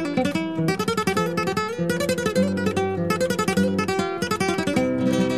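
Background music: an acoustic guitar piece of fast plucked notes and strums.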